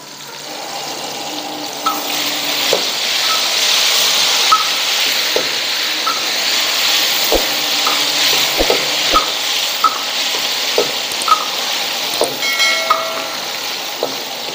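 Turmeric-marinated chicken pieces deep-frying in hot oil in a wok: a steady sizzle that builds over the first couple of seconds, with a metal spatula clinking against the wok about once or twice a second.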